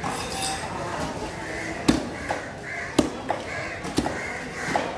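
Large knife chopping through yellowfin tuna meat onto a wooden cutting block: sharp strikes about once a second, with lighter cuts in between.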